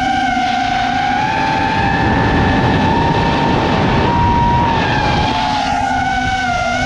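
Custom-built FPV quadcopter's electric motors and propellers whining steadily. The pitch climbs a little about a second in and drops back after about five seconds, with a rush of wind noise over the middle stretch.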